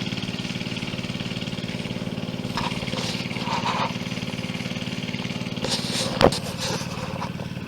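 Small engine-driven water pump running steadily, pumping creek water into the AquaDam. A single sharp knock about six seconds in.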